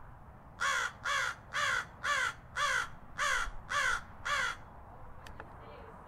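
Crow cawing: eight caws in a quick, even series, about two a second, each falling slightly in pitch.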